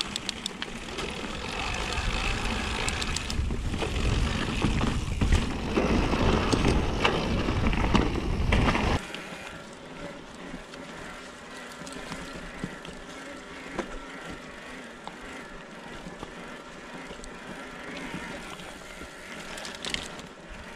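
Electric mountain bike mid-drive motors whining while pedalled at high cadence on a trail, heard from the bike with wind and trail rumble. First a Rocky Mountain Dyname 3.0 motor, louder with heavy rumble. After a sudden cut about nine seconds in, a quieter Specialized 2.1 RX motor with a steady whine and occasional clicks.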